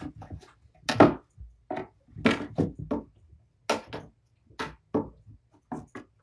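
A run of about fifteen sharp knocks and taps at an uneven pace, some loud and some faint, with the loudest about one and two and a half seconds in.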